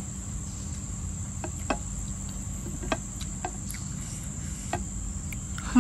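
Steady high-pitched chirring of insects in the grass, with a few short soft clicks from chewing and eating with the fingers.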